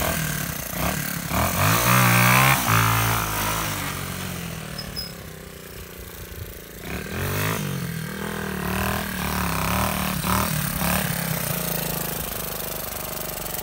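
Honda XR125's single-cylinder four-stroke engine being ridden: it revs up, drops away to a quieter run, then revs up again and carries on running steadily.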